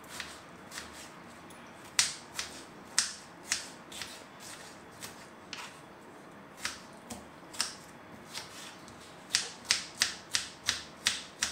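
Kitchen knife chopping cucumber on a bamboo cutting board: sharp knocks of the blade against the board, spaced irregularly at first, then a quicker run of about three a second near the end.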